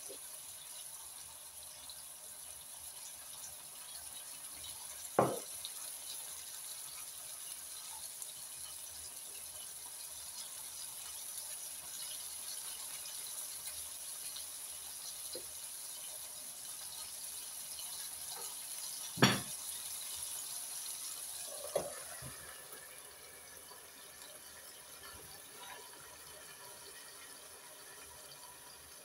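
Two beef patties sizzling in a frying pan, a steady hiss that quietens about three-quarters of the way through, once a glass lid is set on the pan. A few sharp knocks sound over it, the loudest about two-thirds of the way through.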